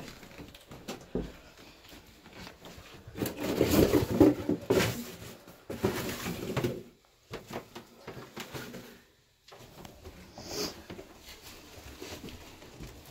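Footsteps climbing stairs, with irregular knocks, scuffs and rustling from handling the phone camera, busiest a few seconds in.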